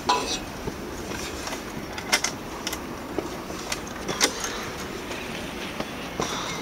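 Footsteps climbing concrete stairs, with a few sharp knocks and scuffs about one to two seconds apart over a steady rustle of movement.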